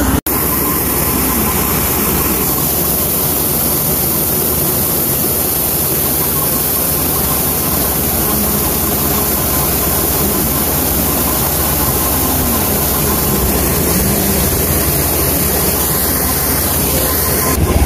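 Tractor-driven maize thresher at work: the Ghazi tractor's diesel engine runs steadily under load while the thresher whirs, making one loud, unbroken mechanical din.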